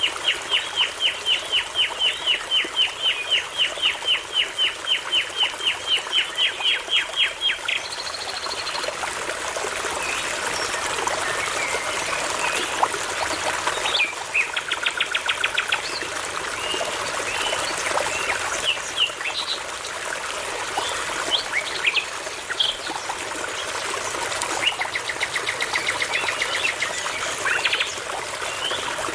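Songbirds singing over a babbling brook. It opens with a long, loud series of rapid repeated notes, about four a second for nearly eight seconds. Short trills and scattered chirps follow, with another run of repeated notes near the end, over the steady trickle of the water.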